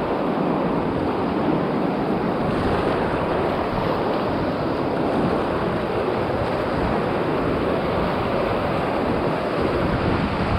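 Rushing, churning whitewater of a river rapid, heard close up from a kayak running through it: a steady, even roar of water.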